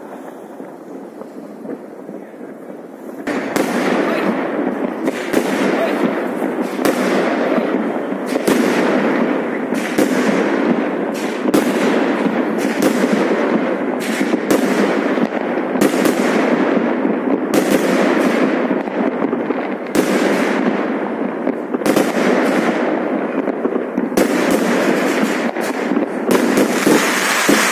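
Fireworks going off: quieter, scattered pops at first, then about three seconds in a dense, continuous barrage of bangs and crackling from many shells at once.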